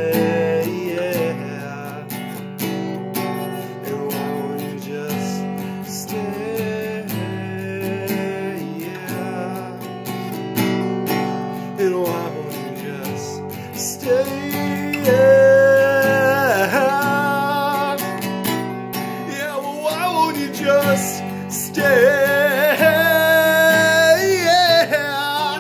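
A man singing over his own strummed cutaway acoustic guitar. His voice climbs into long held notes about fifteen seconds in and again near the end.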